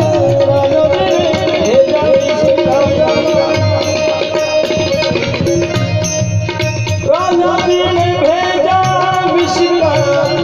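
Music: a melody with gliding, bending notes over a steady held drone, with fast, dense drumming throughout.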